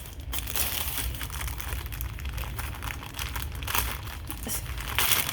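Plastic tortilla package being opened and handled, crinkling in irregular bursts, with a louder rustle near the end.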